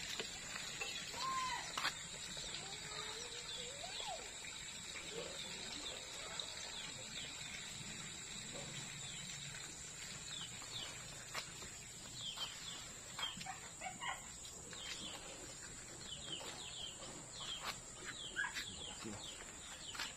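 Faint outdoor ambience of birds chirping: short, quick chirps that come thick and fast in the second half.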